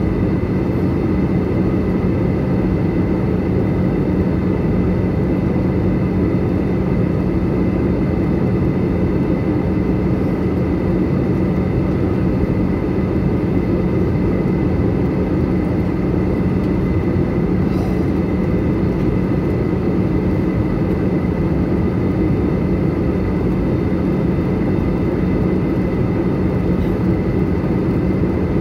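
Inside the cabin of an Airbus A320-214 in flight: the steady rush of airflow and hum of its CFM International CFM56-5B turbofan engines, with a steady low drone and a thin high tone held throughout.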